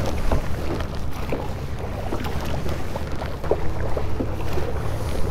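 Kayak paddle strokes: the double-bladed paddle dipping and pulling through calm water, with splashes and drips about every second. Underneath is a steady low rumble of wind on the microphone.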